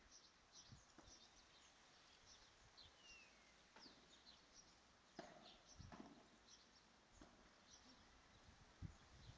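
Faint open-air ambience with many short, high bird chirps and a few dull knocks of a padel ball being hit.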